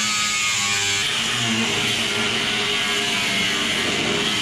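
Handheld angle grinder with a cutoff disc running steadily as it cuts through the sheet-steel shell of an old Craftsman top toolbox.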